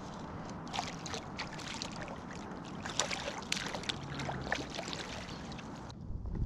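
Water sloshing and trickling around a fishing kayak's hull, with many small sharp ticks and splashes scattered through it. The splashes and ticks stop shortly before the end.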